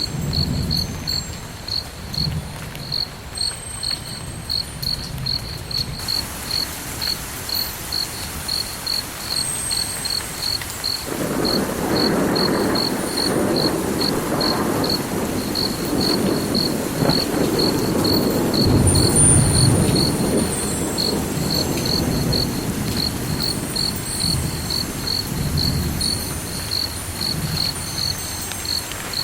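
A cricket chirping steadily, about two high chirps a second, with faint high bell tones above it. A low rumble swells in about eleven seconds in and fades by about twenty seconds.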